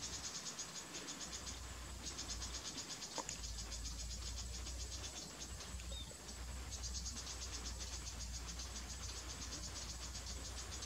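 Insects trilling: a high-pitched, fast, evenly pulsed chirring that comes in bouts, easing briefly about a second in and again around five to six seconds in, over a steady low rumble.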